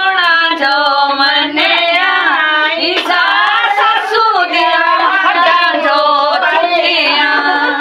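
Women singing a wedding folk song together in long, gliding, high-pitched notes, with scattered sharp hand claps.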